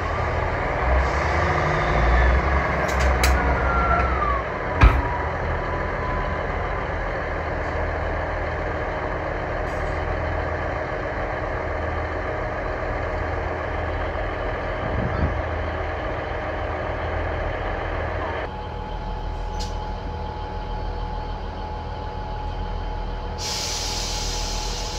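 Class 158 diesel multiple units idling while the coupled pair is divided, with a falling squeal and then one sharp clunk about five seconds in, then the diesels running on steadily.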